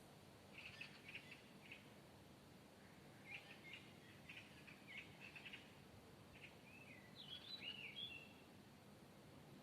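Faint songbird chirps in short quick clusters, then a few swooping whistled notes about two-thirds of the way in, over a faint steady low background hum.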